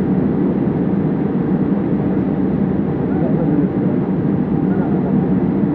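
Steady cabin rumble and hiss inside a Boeing 787-8 airliner as it taxis on the ground.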